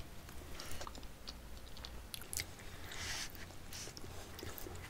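Quiet chewing of soft homemade chocolate muffins, with faint scattered mouth clicks.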